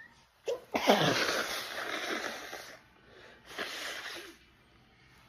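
A woman sneezing in a sneezing fit: a short falling voiced intake leads into one long, loud sneeze, and a second, shorter sneeze follows about three and a half seconds in.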